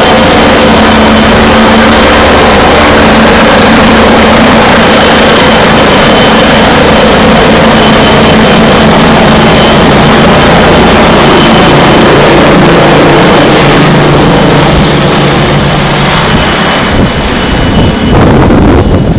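Helicopter hovering low overhead: loud, steady rotor and engine noise with a thin high whine, thinning out in the last couple of seconds.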